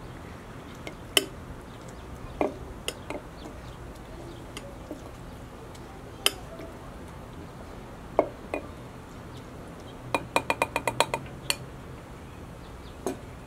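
Cocktail muddler crushing cherries in a stemless glass, knocking and clinking against the glass now and then. About ten seconds in comes a quick run of about ten taps.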